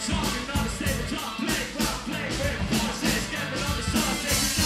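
A rock band playing live: electric guitar, bass guitar and a drum kit keeping a steady beat, with a singer singing into a handheld microphone.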